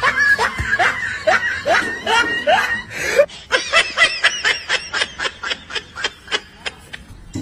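A person laughing in a string of short, falling-pitched laughs, then a fast run of short breathy laughs, about five a second, from about three and a half seconds in.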